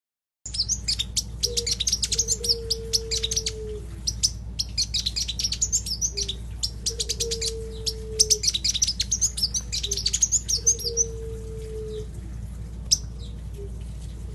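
Sunbird chirping: rapid runs of thin, high twittering notes in spells of two to three seconds with short gaps. Beneath it a lower note is held, then drops off, repeating every few seconds over a steady low hum.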